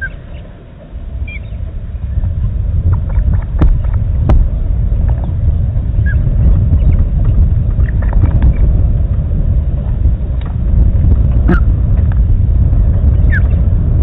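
Low rumble of wind buffeting the microphone, quieter for the first second or so and then steady. A few short high bird chirps and some sharp clicks come through over it.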